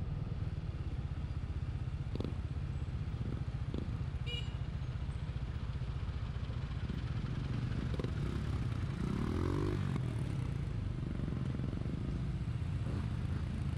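Benelli TNT 25 motorcycle under way, its engine running over a steady low rumble, with a rising engine note about nine seconds in.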